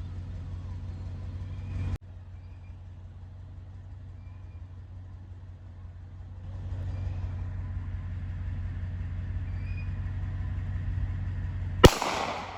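A single loud gunshot near the end, sharp, with a short echo trailing off after it. Under it is the steady low hum of an engine running.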